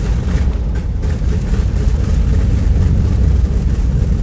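Airplane engines running: a loud, steady low rumble with a hiss above it, from a 1958 LP sound-effects recording.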